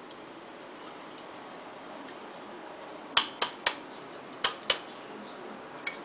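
Sharp clicks and clacks of a toy magic trick's thin metal saw blade and hard plastic parts being handled. Three quick clicks come about halfway through, two more follow about a second later, and a fainter one comes near the end.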